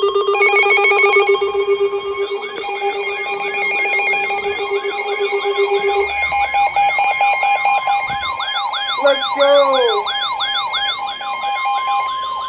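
Layered electronic alarm tones of an emergency alert. Several steady tones sound together with a siren-like warble that sweeps up and down about twice a second and a stepped high beeping. A steady low tone drops out about halfway through.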